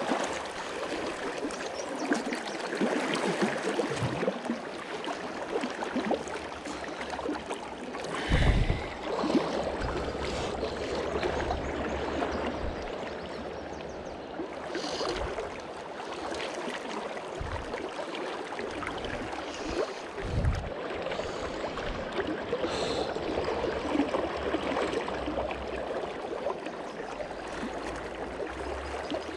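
Fast river current rushing and gurgling close to the microphone, steady throughout. A few short, low thumps stand out, the loudest about eight seconds in and another about twenty seconds in.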